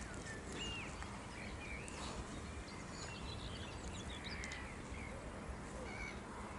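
Faint lakeside ambience: small birds giving short chirping calls every second or so over a low steady background hiss.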